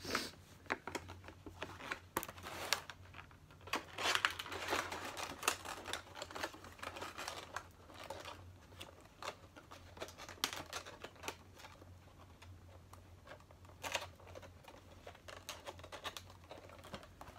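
Toy packaging being handled: plastic and cardboard crinkling and rustling, with scattered clicks and taps from the box.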